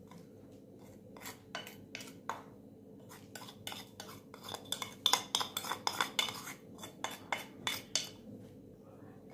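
Light clicks and taps of a plastic bowl knocking against the rim of a glass mixing bowl as gram flour is tipped out of it, growing quicker and louder from about four seconds in.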